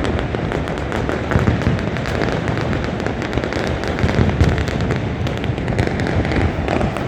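Many fireworks going off at once all across the city, heard from high up: an unbroken din of overlapping booms and crackling bangs with no pause.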